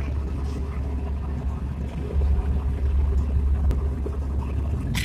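Steady low rumble of a boat under way at sea, its engine and wind on the open water, with a short sharp knock near the end.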